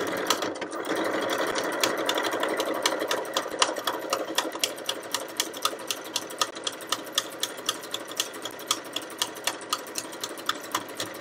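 Janome 2160 sewing machine running steadily, sewing a heavy triple straight stitch (stitch no. 4, which goes forward and back several times) through layered fabric, with a regular clicking of needle strokes, about three a second. It is a little louder in the first few seconds.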